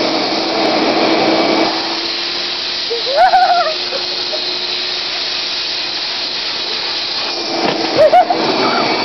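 Vacuum cleaner running steadily with its hose nozzle sucking on a plastic piggy bank, a constant rushing noise with a steady hum. Two brief high squeals rise over it, about three seconds in and again near the end.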